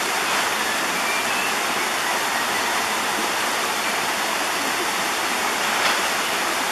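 Steady rush of stream water flowing over rocks, with a brief sharp click about six seconds in.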